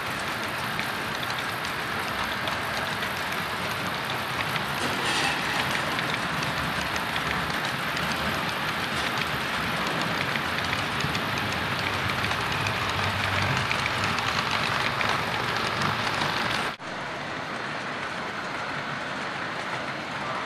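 HO scale model freight train's cars rolling over the track, a steady rattling clatter of small wheels on rail joints. It breaks off for an instant about three-quarters of the way through and then goes on a little quieter.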